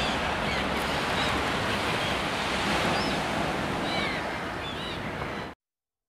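Surf washing steadily, with a few short high calls from a flock of terns and gulls resting on the beach. The sound cuts off suddenly near the end.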